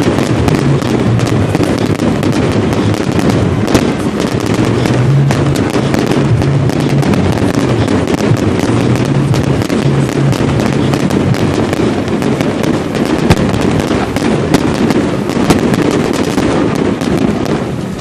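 Fireworks display going off in a continuous, dense barrage of crackling pops and bangs, loud throughout, with a few sharper reports standing out in the second half.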